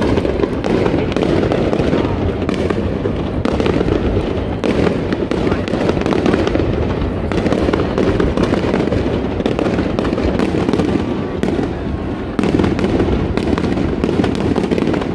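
Aerial fireworks going off in a dense, unbroken barrage: many bangs and crackles overlapping in quick succession over a continuous low rumble, with no pause.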